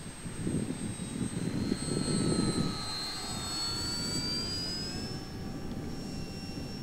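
Electric brushless outrunner motor (3015, KV1700) and propeller of an FMS 800mm T-28 Trojan RC plane whining in flight. The high whine climbs in pitch about three seconds in and then holds steady. Gusty wind rumbles on the microphone, loudest in the first few seconds.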